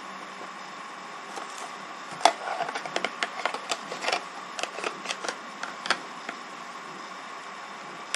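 A quick irregular run of sharp clicks starting about two seconds in and lasting some four seconds, the first click the loudest, over a steady faint hiss and hum.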